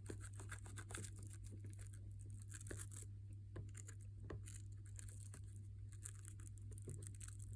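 Faint, irregular scratching and small clicks of a manual toothbrush's bristles scrubbing inside an iPad charging port.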